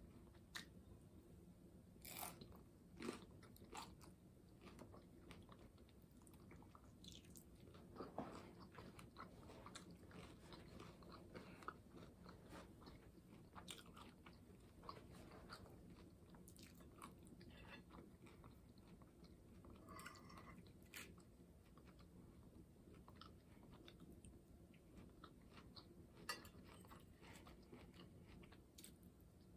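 Faint close-miked chewing and biting of a taco meal, with scattered short crunches and mouth clicks.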